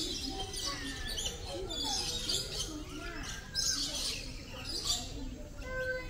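Many birds chirping and calling at once, with a dense mix of short high chirps and whistles overlapping throughout, over a lower murmur.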